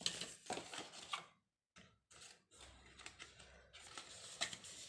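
Paper and cardboard phone-box packaging being handled: irregular rustling with light clicks and taps as accessories are lifted out, briefly stopping about a second and a half in.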